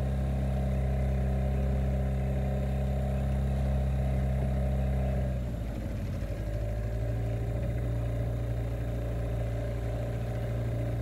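Outboard motor on an inflatable dinghy running steadily under way, easing off slightly about halfway through, its note changing and its level dipping a little.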